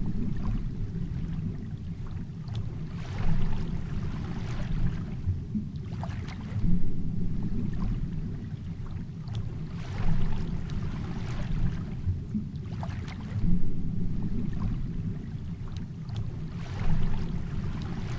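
Muffled underwater water noise picked up by a submerged camera: a steady low rumble, with a rush of water swelling about every three seconds and scattered small clicks.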